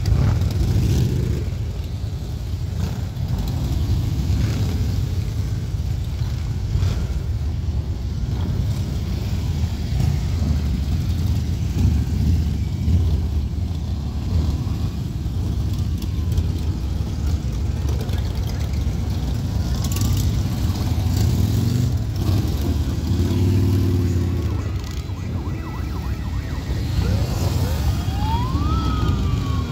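A stream of Harley-Davidson V-twin motorcycles passing one after another at low speed, their engines making a continuous low rumble. Near the end, a siren rises and then falls in pitch.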